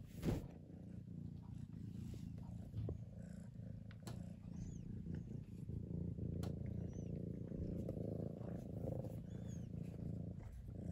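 Tabby cat purring steadily, heard close up with the microphone right against its fur. A brief bump sounds just after the start.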